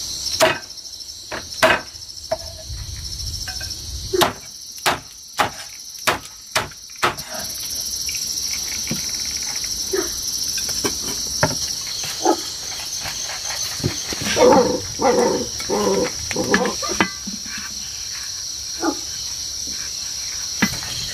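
A steady, high-pitched insect chorus runs throughout. About four seconds in, a quick string of about six sharp knocks sounds, roughly two a second, and a looser cluster of knocks and clatter follows in the second half.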